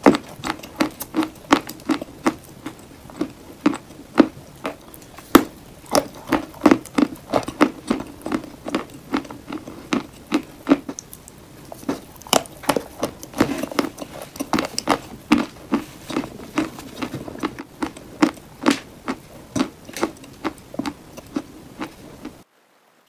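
Chalk being crunched in a bowl: a quick run of crisp, sharp crunches, about two a second, that cuts off abruptly shortly before the end.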